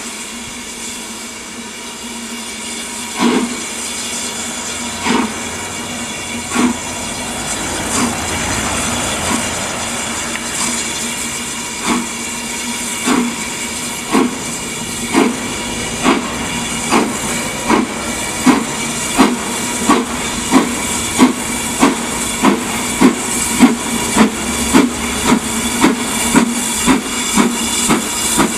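BR Standard Class 4 4-6-0 steam locomotive no. 75029 getting a train under way, its exhaust beats coming slowly at first and quickening to about two a second as they grow louder, over a steady hiss of steam.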